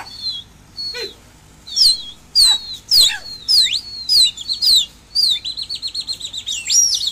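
Loud, sharp whistles repeated about twice a second, each rising then falling in pitch, then a fast warbling whistle trill from about five seconds in. These are the whistles of pigeon keepers driving their flock to keep flying.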